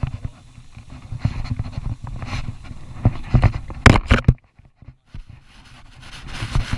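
Rumble, knocks and scraping from a body-worn GoPro as the wearer moves right up against a rock face, with heavy breathing swells about a second apart. A loud knock just before the middle, then the sound cuts out for about a second.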